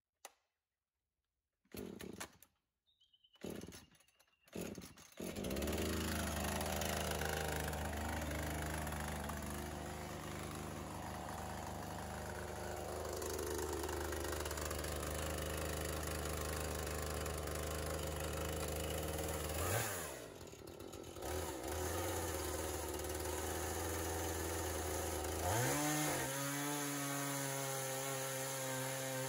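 Two-stroke petrol chainsaw being pull-started, with a few short bursts before it catches about five seconds in and settles into a steady idle. Near the end it revs up and cuts into the top of a timber post.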